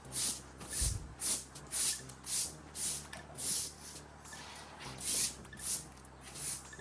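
Rhythmic scratchy sweeping strokes over the ground, about two a second, with a short lull about four seconds in.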